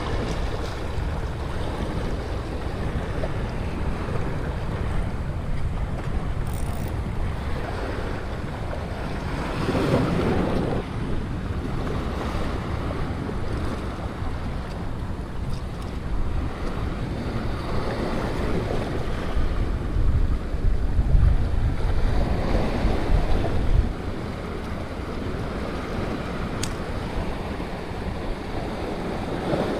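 Surf washing over a rocky shoreline, with strong wind buffeting the microphone in gusts that swell louder about a third of the way in and again in the second half.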